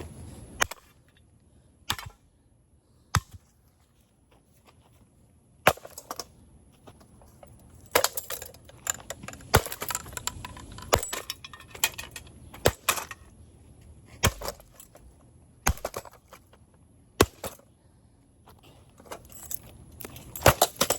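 Sledgehammer blows on a 24-inch allen + roth ceiling fan's metal mounting bracket and downrod: about a dozen sharp strikes, one every second or two, with clanking and rattling of the loose metal parts between them.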